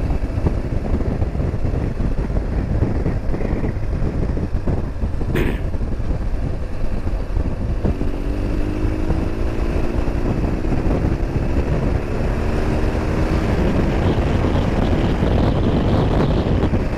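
BMW R1200GS flat-twin engine accelerating hard to overtake a car, its note rising steadily in pitch from about halfway and getting louder, under heavy wind rush at speed. A single brief click about five seconds in.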